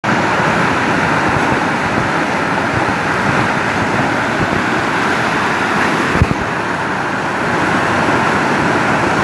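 Steady rushing of flowing water, with one short low thump about six seconds in.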